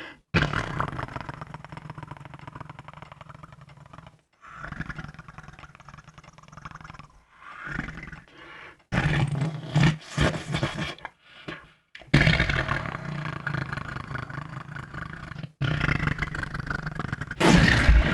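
A person making fake fart sounds: a run of about eight buzzing blows, each lasting from under a second to about four seconds, with short breaks between them.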